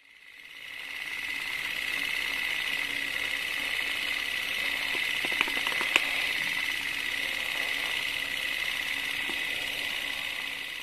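Film projector running: a steady mechanical whirring clatter that fades in and out, with two sharp clicks a little past the middle.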